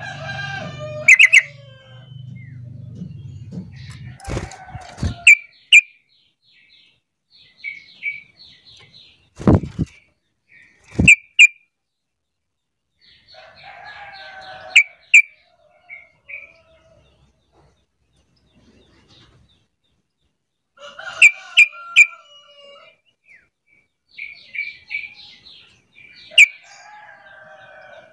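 Yellow-vented bulbul (trucukan) giving bubbly, chattering call phrases in bouts of a second or two with pauses between, scattered with sharp clicks. A few dull thumps come in the first half.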